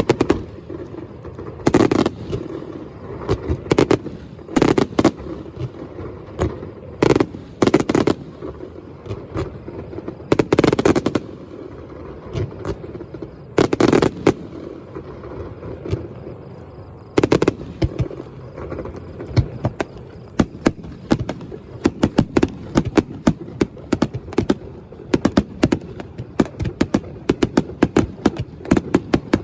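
Fireworks display: aerial shells bursting with sharp bangs, singly and in small clusters a second or two apart, then from a little past halfway a rapid, near-continuous barrage of many bangs.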